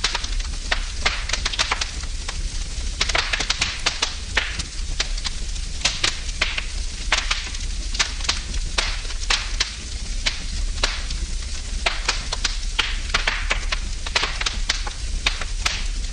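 Wood fire in a fireplace crackling and popping, with irregular sharp crackles several times a second over a steady low rumble.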